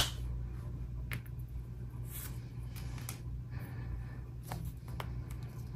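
A cardboard box's paper tear strip snaps free with a sharp click at the start, then faint rustles and light taps as the box is handled, over a steady low hum.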